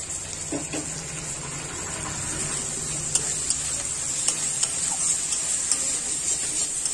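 Onion and spice masala sizzling in oil in a kadai while tomato pieces are stirred in with a spatula. The spatula makes several sharp clicks and scrapes against the pan in the second half, over a steady low hum.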